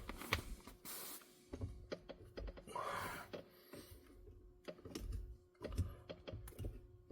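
Faint, irregular small clicks and rubbing of fingers working at the edges of a Tesla Model Y's rubber brake pedal cover, trying to pry it off the pedal.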